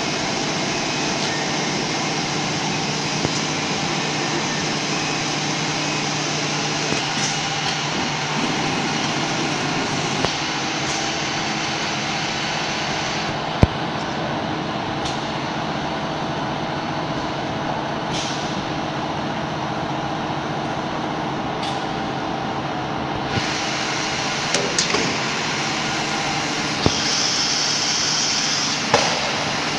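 Steady machinery drone of an ATC CNC router with an automatic board-feeding table at work, with scattered clicks, a single sharp knock about halfway through and a brief hiss near the end.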